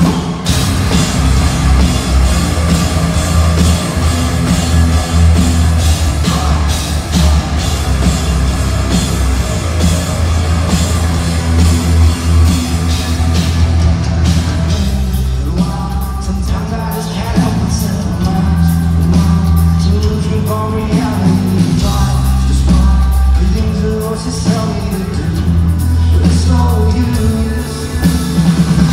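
Rock band playing live with a lead singer: electric guitar, bass and drums with sung vocals, the low end heavy and boomy in a recording made from the crowd. The dense full-band sound eases a little about halfway through.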